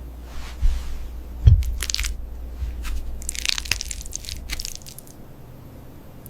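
A cat crunching crunchy food close to the microphone: two short clusters of crisp bites, with a couple of dull low thumps early on.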